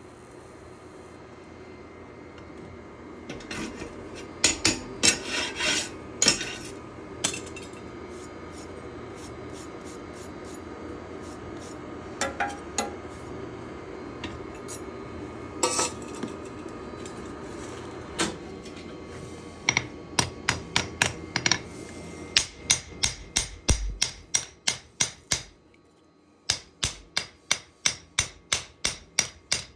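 Hammer blows on steel at the anvil while a knife is being forged: a few scattered strikes and short clusters at first, then a steady run of about two blows a second through the second half. A steady background noise underneath stops about 26 seconds in.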